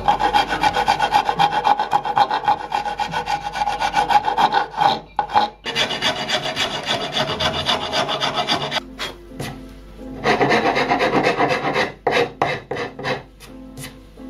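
Round rasp filing a carved hollow in a white oak door pull, scraping back and forth in quick strokes, about four a second, with short pauses about halfway through and sparser strokes near the end.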